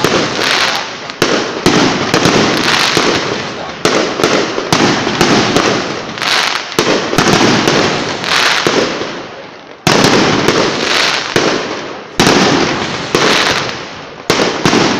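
Aerial fireworks shells bursting in a rapid series of sharp bangs, about one a second and some in quick succession, each trailing off in an echo. After a short lull, a loud bang comes about ten seconds in.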